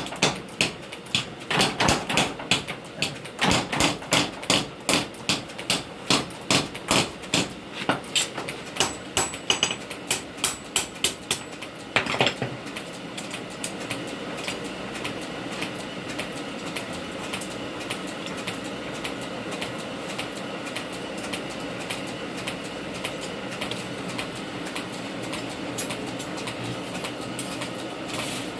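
Hammer blows on hot steel at the anvil during forging, about two strikes a second for roughly twelve seconds. After that the blows stop and a steady mechanical noise with fast faint ticking runs on.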